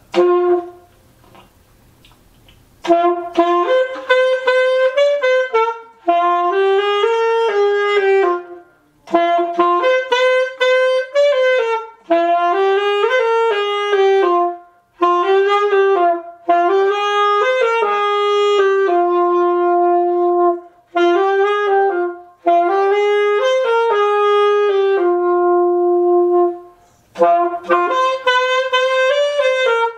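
Solo alto saxophone playing a slow melody in phrases, with short breaks for breath between them. A brief note sounds right at the start, then a pause of about two and a half seconds before the melody begins.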